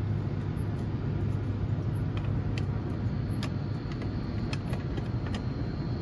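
A steady low rumble with light, irregular clicks of the metal latch plate and screwdriver being handled against the door.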